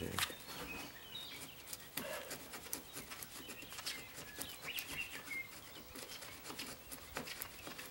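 Wood chisel scraping and paring a strike-plate mortise in a door jamb: a run of light scrapes and sharp clicks. Birds chirp faintly in the background.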